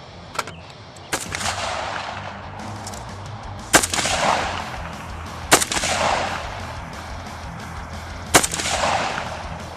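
Rifle shots fired one at a time. Two fainter shots come near the start, then three loud shots a couple of seconds apart. Each is followed by a fading echo.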